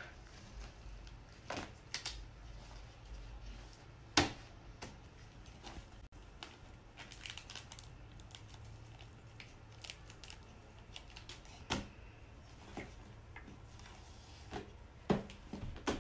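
Foam (shaving-cream) slime being kneaded, stretched and pressed by hand on a tabletop: scattered soft clicks and crackles, the sharpest about four seconds in.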